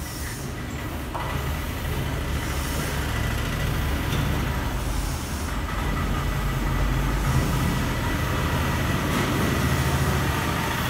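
A steady low rumble that grows louder over the first few seconds, with a faint thin high tone above it.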